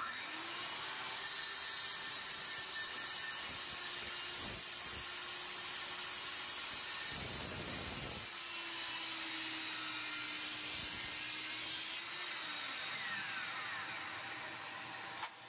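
Takagi DM-110 165 mm corded circular saw spinning up and cutting through a board, with a vacuum drawing dust through the saw's homemade collection duct. The cut turns rougher for about a second just past the middle. Near the end the saw's whine winds down while the vacuum keeps running.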